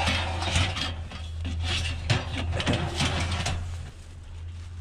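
Steel bed-frame rail being shoved into a car's cargo area against a load of scrap metal: a run of clanks, knocks and scrapes that eases off near the end. A low steady hum runs underneath.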